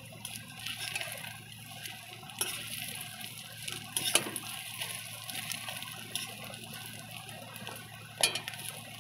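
Egg frying in hot oil in a steel wok, with a steady sizzle. A metal spatula scrapes and knocks against the pan a few times, the loudest near the end.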